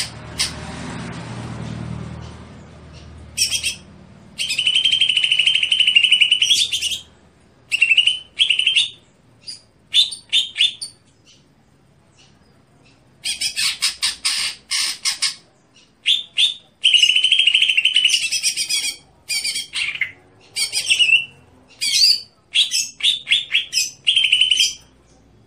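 Green leafbird (cucak hijau) calling: loud bursts of harsh, buzzy phrases and rapid trains of short notes, repeated with short pauses between them.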